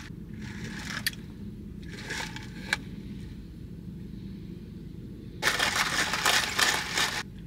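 A plastic cup of iced latte with ice being handled and sipped, with a couple of light clicks, then about two seconds of loud noise from the cup and drink near the end. A steady low hum of a car cabin lies underneath.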